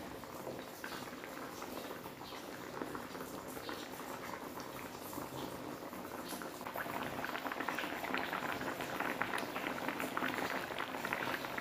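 Patin fish gravy of coconut milk and tempoyak boiling in a wok: a steady crackle of small bubbles popping, growing louder in the second half.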